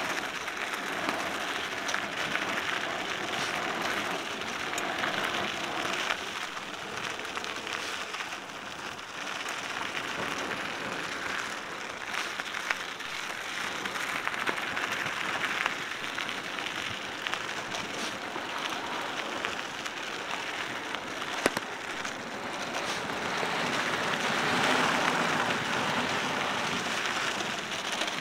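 Cannondale mountain bike rolling downhill on a dry dirt single-track trail: a steady crunching hiss of tyres on dirt and small stones, dotted with small clicks and rattles from the bike. A few sharper clicks come through, and the sound swells for a few seconds near the end.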